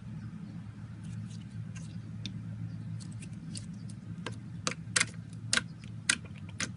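Slime being squished and poked by hand, giving irregular sharp clicks and pops that come thicker and louder in the second half, over a steady low hum.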